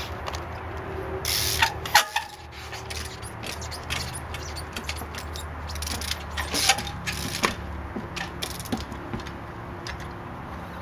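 A trials bike's rear hub ratcheting, with creaks and sharp clicks and knocks as the rider hops and balances on the back wheel. The loudest knocks come about two seconds in and again around six to seven seconds.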